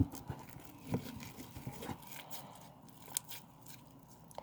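Sticky Play-Doh slime being kneaded and pulled apart by hand, a scatter of small clicks and crackles.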